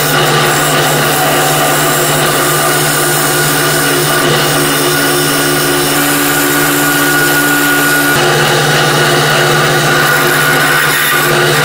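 Wood lathe running with a steady motor hum while a hand-held turning tool cuts into the inside of a spinning wooden cone, a continuous scraping and cutting. A higher whine joins for a few seconds in the middle.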